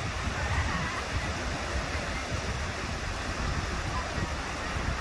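Ocean surf rushing steadily in the shallows, with wind rumbling on the microphone.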